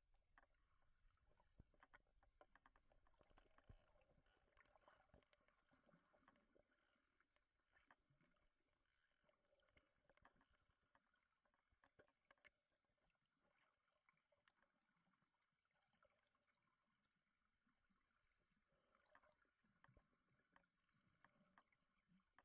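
Near silence underwater: faint scattered clicks and crackling over a low hiss.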